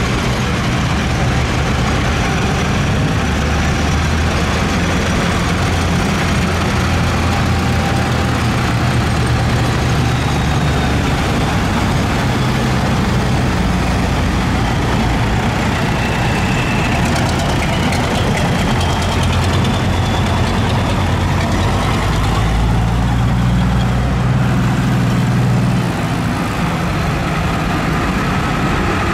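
Farm tractor engines running at low speed as a line of tractors drives past one after another, a steady low engine note that grows a little louder about three-quarters of the way through.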